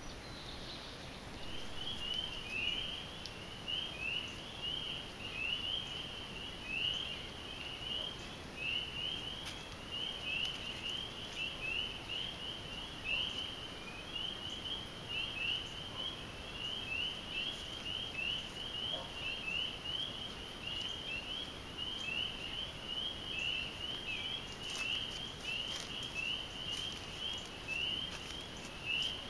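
A chorus of frogs calling: a dense, unbroken run of short high-pitched calls that starts about a second and a half in.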